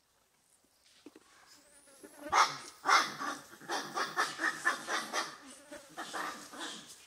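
Macaques calling in a rapid run of short cries, several a second, starting about two seconds in. The first two cries are the loudest.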